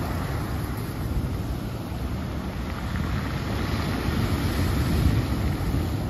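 Ocean surf breaking around rocks and washing up a black-pebble beach, a steady rush that swells a little past the middle, with wind rumbling on the microphone.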